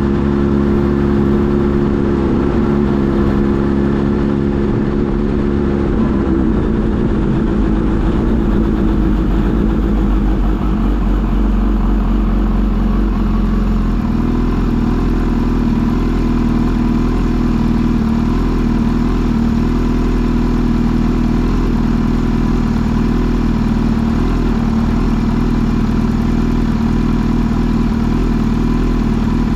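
Kawasaki Z H2 SE's supercharged inline-four engine running. Its note holds steady, wavers and shifts for several seconds around the middle, then settles into a different steady note.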